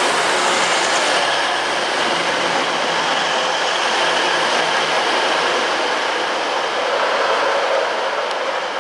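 A train running on the track, a loud steady rush of wheel and running noise that eases slightly near the end.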